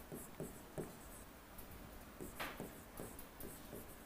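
Faint taps and scratches of a pen writing on an interactive whiteboard screen, a string of short strokes with one sharper tick about halfway through.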